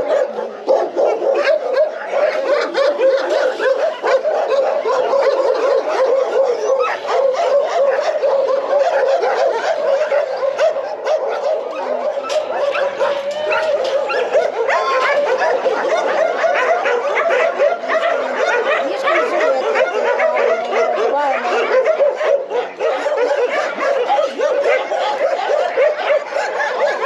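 Many shelter dogs barking at once in their kennels, a continuous chorus of overlapping barks without a break.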